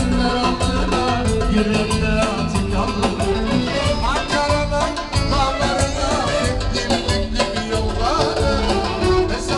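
Loud dance music with a fast, steady beat and a melody with sliding notes.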